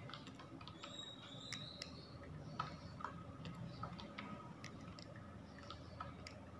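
Faint computer mouse clicks, a dozen or so at irregular spacing, over a low steady room hum.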